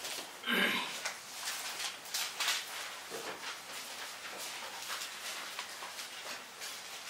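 Pages of a thin-paper Bible rustling and being turned, with scattered short papery scrapes. A short vocal sound comes about half a second in.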